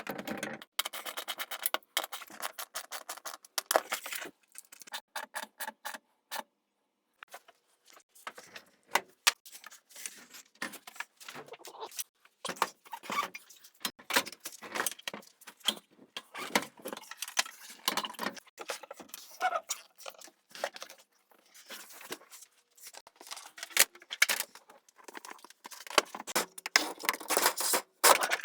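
Metal tools and parts being handled: a busy, uneven run of clinks, knocks and jingles, with short ringing tones from struck metal in places.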